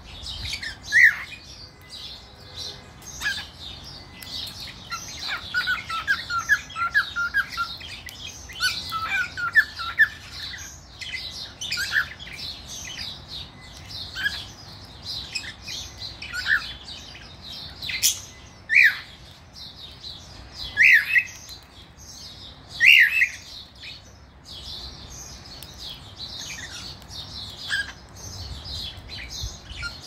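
Male whiteface cockatiel singing: short whistled chirps and quick warbled runs of notes, with several louder, sharp whistled calls in the second half.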